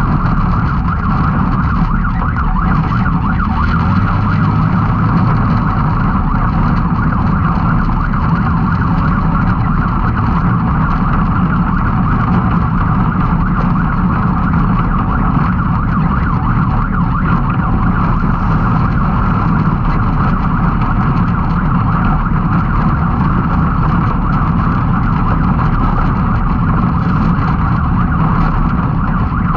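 Can-Am Maverick X3 side-by-side's turbocharged three-cylinder engine running hard under race load, a loud, steady mix of engine and drivetrain noise that never lets up.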